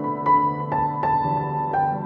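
Background music: a gentle piano melody of single struck notes, about one every half second, over held chords.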